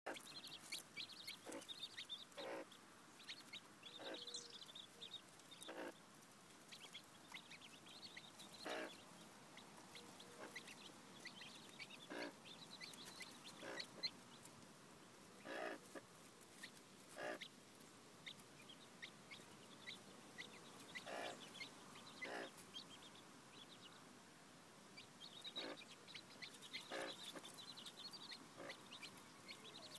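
Mother hen clucking softly in short, single notes every second or two, while her chicks peep in quick, high-pitched clusters.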